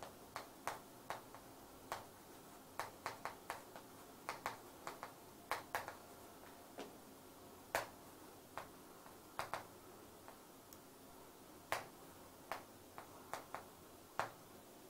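Chalk tapping and stroking on a chalkboard while writing, heard as faint, short, irregular clicks, about two a second.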